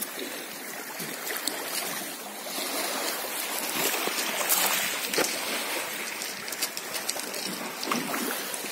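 Small waves of clear sea water lapping and trickling among rocks and pebbles at the shoreline: a steady wash with a few light clicks.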